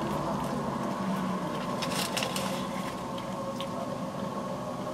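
Steady hum inside a car cabin, with a few faint clicks and rustles about two seconds in.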